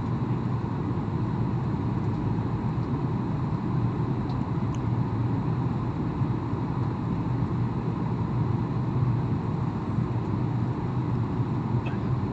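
Airliner cabin noise during descent: a steady low drone of engines and airflow that holds level throughout.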